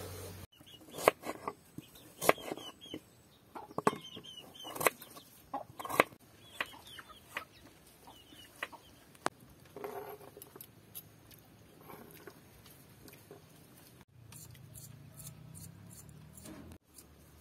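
Chickens clucking, with a run of sharp knocks and clicks in the first six seconds or so.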